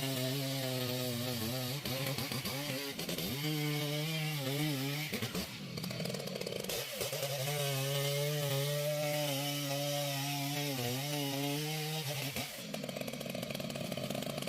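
Chainsaw engine running at high revs, its pitch sagging and recovering several times. It turns rougher and noisier around the middle and again near the end.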